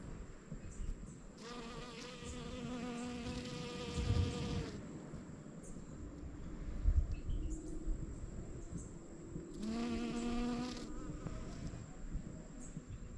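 A bee buzzing at a water lily flower, heard twice: a stretch of about three seconds starting about a second and a half in, then a shorter burst near the end. Low rumble runs underneath.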